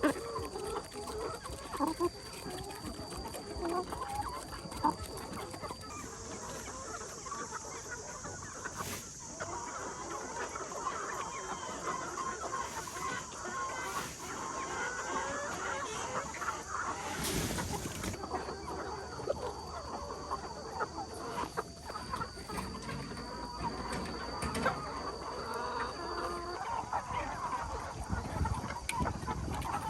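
A flock of chickens clucking and calling, many short calls overlapping, with a steady high-pitched hum behind them.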